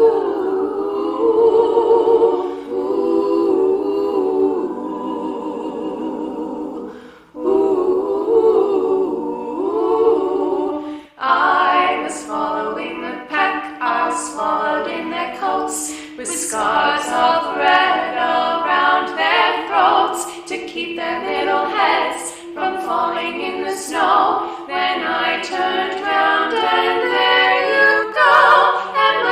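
A cappella vocal group singing in harmony. For roughly the first eleven seconds it holds sustained wordless chords, then it moves into a quicker passage with words.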